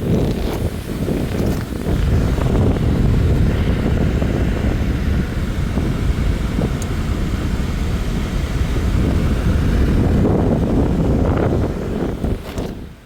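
A clogged AC condensate drain line being flushed out to clear the gunk blocking it: a loud, steady rushing noise that starts suddenly and cuts off near the end.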